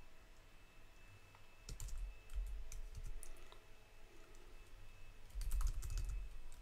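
Computer keyboard being typed on in short bursts of key clicks.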